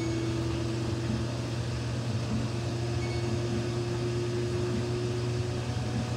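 Samsung front-load washing machine running with a steady low hum and a steady tone over it; the tone stops about five and a half seconds in.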